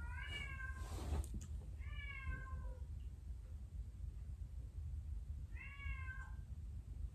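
A pet animal crying three times: short, high, meow-like calls that bend slightly down at the end, spaced a few seconds apart. A brief rustle or knock comes about a second in.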